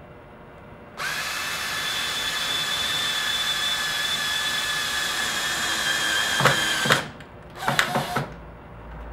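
Cordless drill driving a black frame screw into the corner of a wooden frame. The motor whines steadily for about six seconds, then stops with a couple of clicks, followed by a few short bursts as the screw is set just beneath the surface of the wood.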